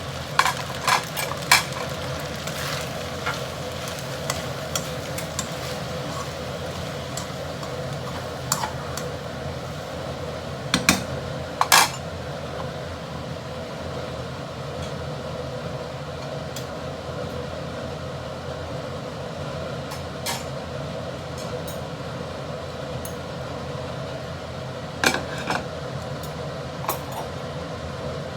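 Udon stir-frying in a pan with black pepper sauce: a steady sizzle, with a spatula knocking and scraping against the pan now and then, in small clusters near the start, about a third of the way in and near the end.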